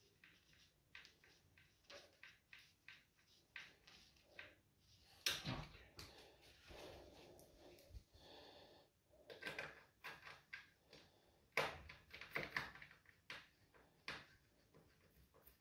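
Faint, scattered clicks and taps with a few louder knocks, about five seconds in and again near twelve seconds: a small screwdriver and fingers working at the metal back frame and plastic parts of a flat-panel LED TV.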